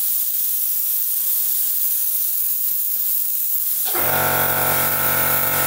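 Air spray gun spraying paint, a loud steady hiss. About four seconds in, a steady motor hum joins: the air compressor cutting in.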